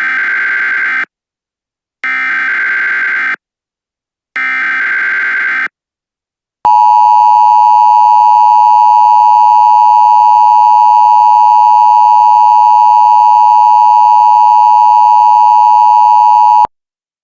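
Emergency Alert System tones: three bursts of SAME digital header data, each about a second long, then the steady two-tone attention signal held for about ten seconds before cutting off suddenly. Together they announce the start of a new emergency alert.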